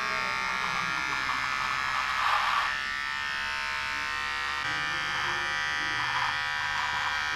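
Electric shaver buzzing steadily as it shaves off a moustache, with a louder, rougher stretch about two seconds in as it cuts through the hair.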